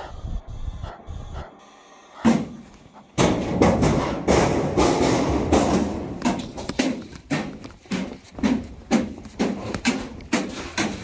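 Footsteps and camera-handling knocks from someone moving fast with a handheld camera, about two thuds a second, over heavy breathing. A loud, dense rushing noise sets in suddenly about three seconds in.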